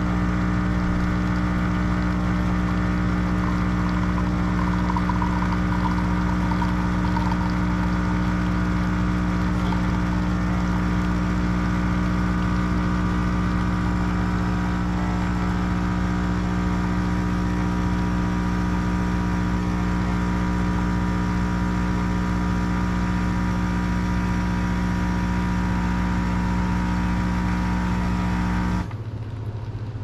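Fully automatic bean-to-cup coffee machine running a brew cycle: a steady mechanical hum of its pump while it dispenses a single coffee into a mug. The hum cuts off suddenly about a second before the end as the cup finishes.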